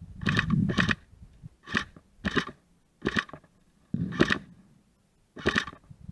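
Footsteps crunching on dry ground close to the microphone: seven uneven strokes, two quick ones at the start, then one about every second.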